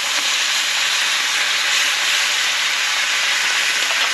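Thick beef sirloin steak sizzling steadily in a small square frying pan on a portable gas stove.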